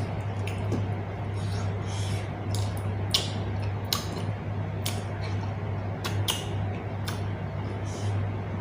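Close-up eating sounds: irregular wet mouth clicks and lip smacks of someone chewing, over a steady low hum.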